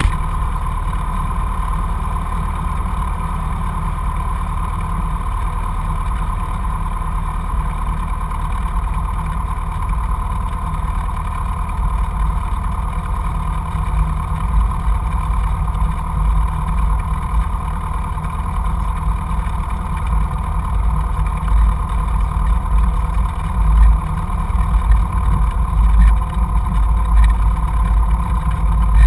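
Cessna light aircraft's piston engine running steadily, heard from inside the cockpit. The deep rumble turns more uneven about halfway through.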